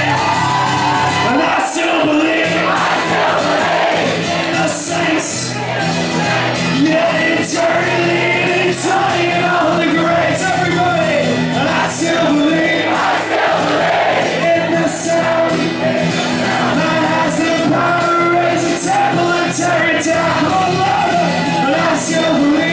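Live acoustic guitar and singing, with the audience singing and shouting along.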